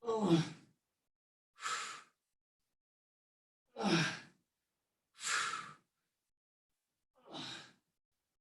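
A person breathing hard from exertion during a core exercise: five heavy exhalations, roughly one every one and a half to two seconds. The first and third are sighs with voice that fall in pitch; the others are breathy puffs.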